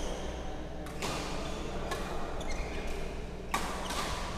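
Badminton rackets striking a shuttlecock in a doubles rally: three sharp hits about a second or so apart, each ringing briefly in the large hall.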